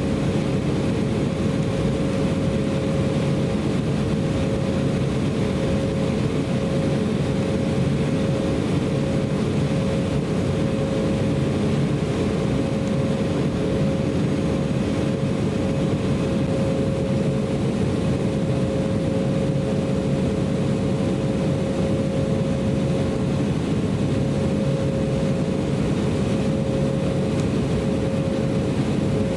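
Cabin noise of an Embraer E190 airliner taxiing: its two General Electric CF34 turbofan engines running steadily at low taxi power, heard from inside the cabin over the wing. A constant low rumble with a steady tone sits over it, unchanging throughout.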